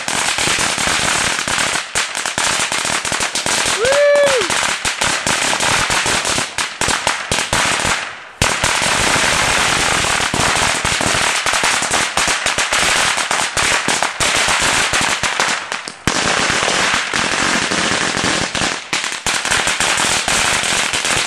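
A long string of firecrackers going off in a dense, rapid crackle of pops, breaking off briefly about eight and sixteen seconds in. A short tone rises and falls once about four seconds in.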